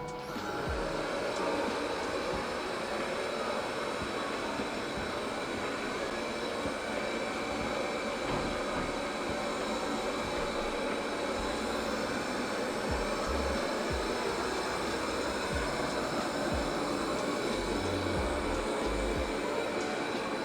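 Deenkee D40 robot vacuum cleaner running: the steady whir of its suction fan and brushes, with a thin high whine on top. It comes up to speed over the first second or two, then holds steady.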